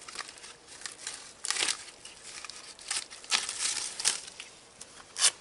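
Clothing rustling against a clip-on microphone: irregular crinkling scuffs, the loudest about a second and a half in, in the middle and just before the end.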